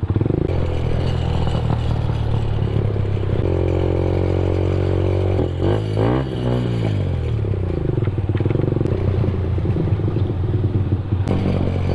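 Benelli TNT 15's 148cc air-cooled four-stroke single running under way through an aftermarket exhaust with the silencer removed, a somewhat noisy note. About five and a half seconds in, the engine note drops and then rises again.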